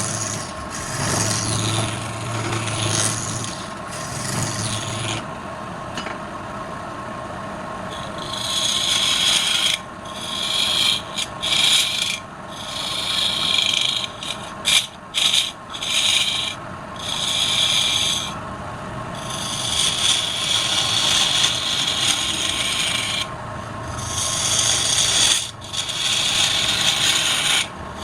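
Wood spinning on a woodturning lathe being worked by hand: a rasping hiss from the tool against the wood that starts and stops in repeated passes, over a steady hum.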